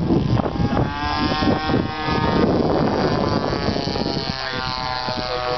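DLE 20cc single-cylinder two-stroke gasoline engine of an RC model plane in flight, a steady buzzing drone whose pitch shifts slightly, with wind rumbling on the microphone.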